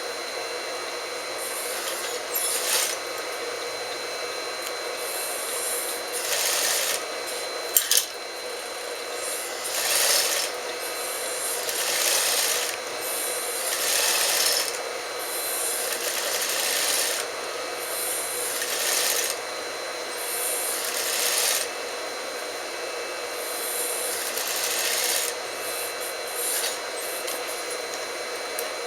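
Sewing machine stitching in about ten short runs of a second or two each, over a steady motor hum, as a trouser waistband is sewn down. There are two sharp clicks about eight seconds in.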